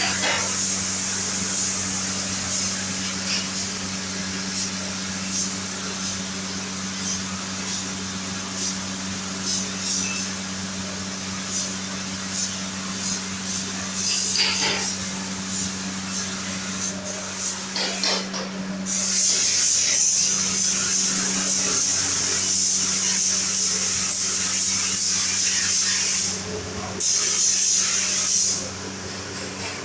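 Compressed-air paint spray gun hissing as paint is sprayed onto the car body. The hiss comes in long bursts with short breaks, strongest in the last third, over a steady low hum.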